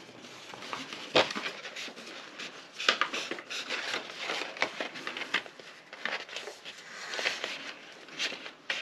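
Cardstock rustling and scraping in short, irregular bits as its score lines are rounded by hand rather than creased.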